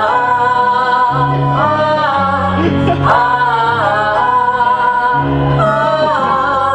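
Live musical-theatre singing with instrumental accompaniment. The voices hold long notes with vibrato over a bass line that changes note about once a second, and several phrases begin with a slide up in pitch.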